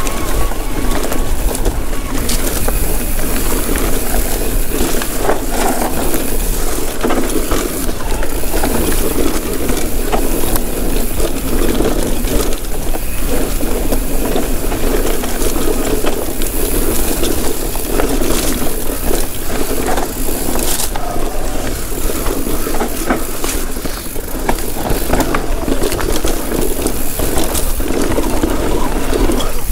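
Electric mountain bike, fitted with a Vittoria Mazza front tyre, ridden down a trail: tyres rolling over dirt and rock as a steady loud rush of noise, with frequent knocks and rattles from the bike over the bumps.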